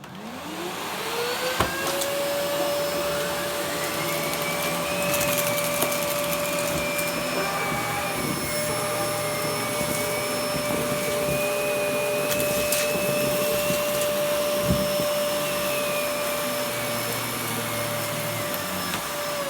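Miele Cat and Dog canister vacuum cleaner switched on, its motor whining up to speed over about two seconds and then running steadily, with a few sharp clicks along the way.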